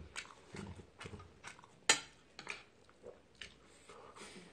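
Faint chewing of rice soaked in ramen broth, with a few small clinks of a metal spoon against the metal pot; the sharpest click comes about two seconds in.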